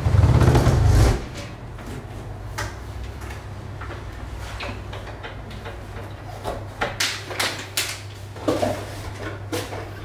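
Scraping, knocking and clicking as a DeLonghi La Specialista Prestigio espresso machine and other items are shifted about on a kitchen countertop. It starts with a loud low rumble and thud lasting about a second, followed by scattered knocks and clicks and a few louder clatters near the end, over a steady low hum.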